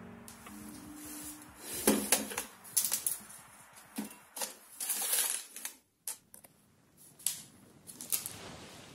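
Hands handling plastic storage baskets and the items in them: irregular clicks, light knocks and rustling, with a brief break just past the middle.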